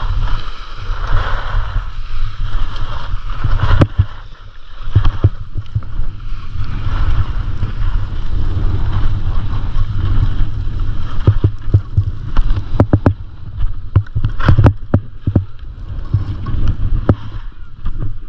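Wind buffeting the microphone of a skier's camera at speed, with skis scraping over packed snow. Frequent sharp knocks come in, most of them in the second half.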